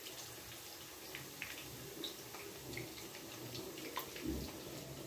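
Mandazi dough deep-frying in hot oil: a soft, steady sizzle with scattered small crackles, and a sharp metallic tap of the slotted spoon against the pan about four seconds in.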